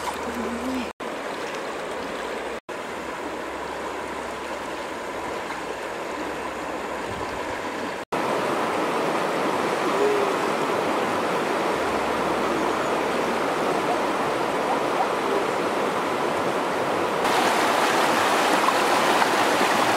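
Shallow river running over rapids: a steady rush of water. It breaks off in a few brief silent gaps, grows louder about eight seconds in, and brightens again near the end.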